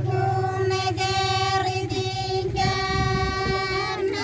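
Group of women singing a Santali Sohrai song in unison, holding long notes with short breaks between phrases.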